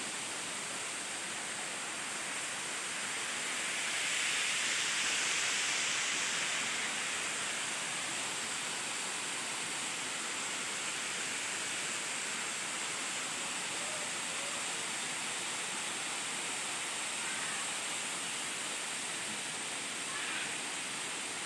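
Steady rush of a small, weak-flowing waterfall splashing onto rocks and into its pool, a little louder about four seconds in.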